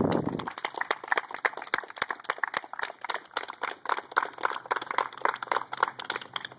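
Small group of people clapping: a quick, uneven patter of separate claps that stops at the end. A low thump fills the first half second.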